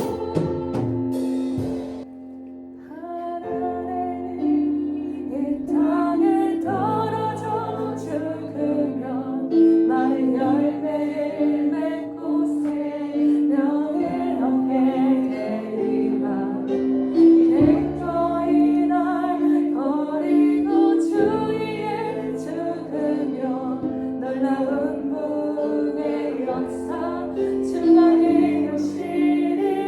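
Christian worship music: one song ends, and after a short gap about two seconds in a new song starts with instruments and singing.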